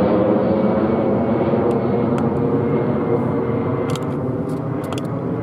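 Airbus A320-214 jet airliner climbing out overhead, its twin CFM56 turbofan engines making a steady roar with a faint whine, slowly fading as it moves away. A few light clicks come in the second half.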